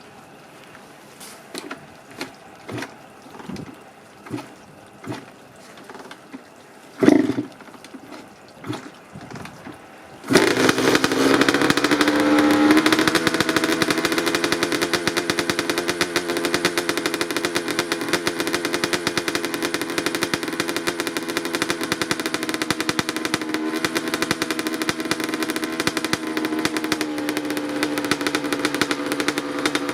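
2007 Honda CR85 85cc two-stroke dirt bike engine being cold-started in winter. It fires in single pops about one a second, with one loud bang about seven seconds in. About ten seconds in it catches and runs, revs up slightly and settles into a steady, rattly two-stroke idle.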